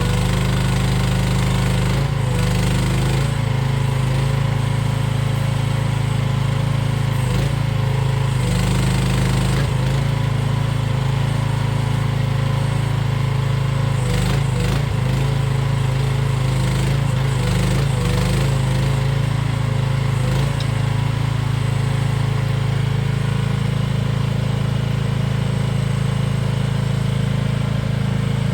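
Mini excavator's small engine running continuously, its note dipping and wavering briefly every few seconds as the hydraulics take load, then holding steadier over the last several seconds.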